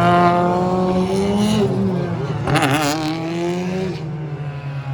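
Touring car racing engines, turbocharged 2.0-litre four-cylinders, at speed, their notes rising and falling through gearchanges as cars pass. A brief harsh burst comes just past halfway.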